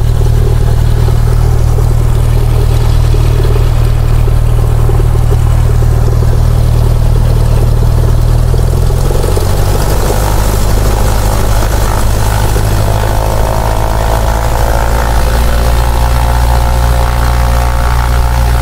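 A Cessna's piston engine and propeller running, heard from inside the cockpit. The engine note shifts about halfway through, and a higher steady whine joins a few seconds later.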